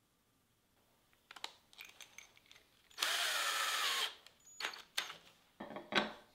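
Ryobi cordless drill running briefly for about a second, its motor whine shifting in pitch, with clicks and knocks of the drill and small metal parts being handled before and after.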